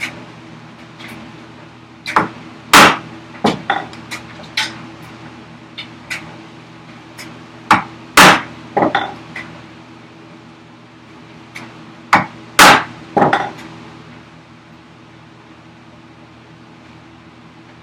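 A chisel being driven into a wooden block with hammer blows, about a dozen sharp strikes in three bursts that stop about two-thirds of the way through. The chisel is chopping along a scored line to split off a waste section of the workbench vise chop.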